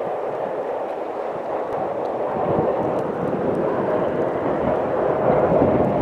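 Steady rumble of a Norfolk Southern freight train rolling along the track, mixed with wind buffeting the microphone in a snowstorm, growing a little louder near the end.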